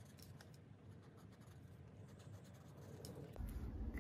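Faint scratching of a marker colouring in boxes on a paper card, with a slightly louder rustle of handling near the end.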